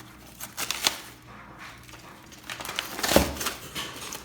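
Gift wrapping and packaging being torn and pulled off a boxed present, in scattered rustles and sharp clicks, busiest about a second in and again near three seconds.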